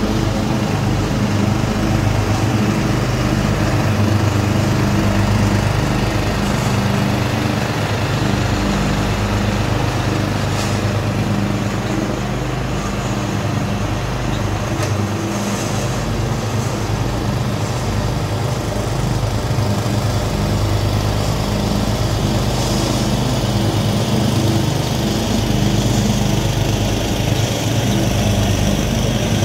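A Craftsman 12.5 hp riding mower and the 13.5 hp engine of the 60-inch Swisher pull-behind mower it tows, both running steadily while cutting long grass. The engine drone is a little louder near the end as the rig comes closer.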